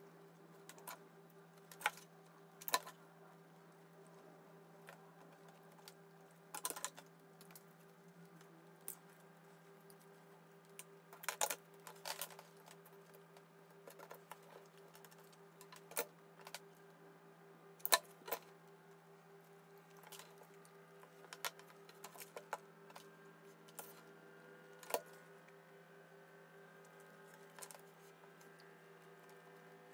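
Irregular taps and clicks of small craft tools and card pieces being handled and set down on a cutting mat, over a steady low hum.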